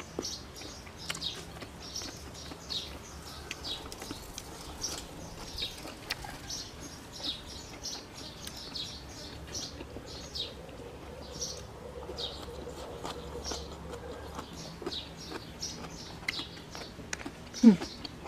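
Small birds chirping, short high notes repeating about twice a second, with a brief louder falling sound near the end.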